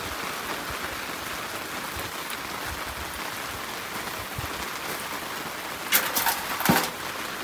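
Steady rain falling, an even hiss of drops on surfaces. About six seconds in, a short clatter of several sharp knocks.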